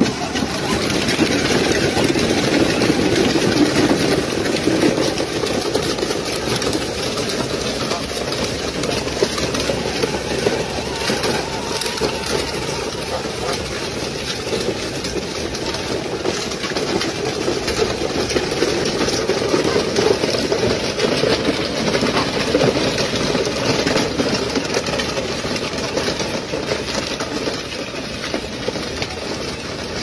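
A child's electric ride-on toy tractor runs steadily, towing a chain of plastic trailers over a dirt track.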